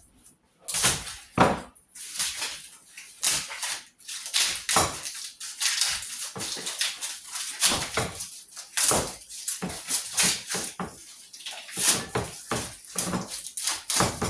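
Scrap copper wire being stripped and handled: a run of irregular scrapes, rustles and clicks as the insulation is worked off the wire, with no steady motor tone.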